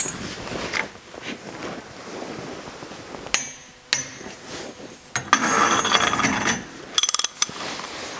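A click-type torque wrench gives two sharp clicks about half a second apart as the transmission input shaft nut reaches its set torque of 80 ft-lb. A clattering, scraping metal sound follows as the long deep socket is worked off the shaft, then a quick run of clicks near the end.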